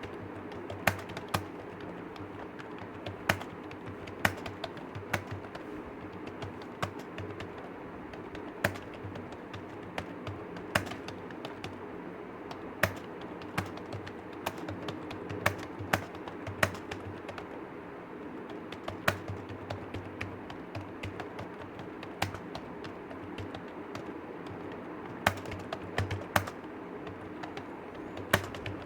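Typing on a computer keyboard: a steady run of irregular key clicks, a few of them sharper and louder than the rest, over a steady low hum.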